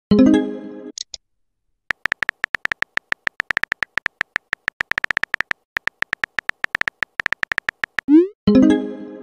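Chat app sound effects: rapid keyboard typing clicks, each with a short beep, about eight to ten a second. A synthetic message chime rings out at the start and fades within a second, and near the end a rising swoosh and a second chime mark a message being sent.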